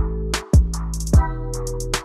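Background music with a steady beat: electronic drums with deep kick thumps and a sustained bass line.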